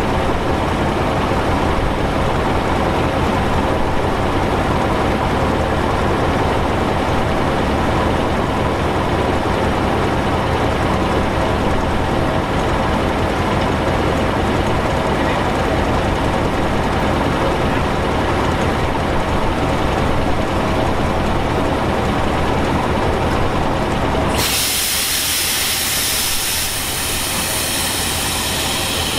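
Diesel passenger train standing at a platform: a steady idling rumble with a low hum. About 24 seconds in it gives way abruptly to a loud, sustained hiss of compressed air, the train's air brakes venting.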